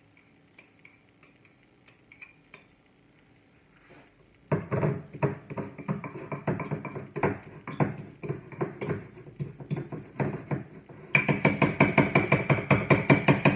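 Metal fork mashing soft butter in a ceramic bowl, clicking and scraping against the bowl in quick repeated strokes. The strokes start about four and a half seconds in, and near the end turn faster and louder.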